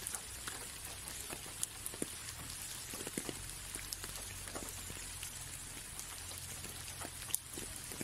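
Light rain on a window pane: a steady hiss with many scattered drop ticks, two sharper taps standing out, one early and one near the end.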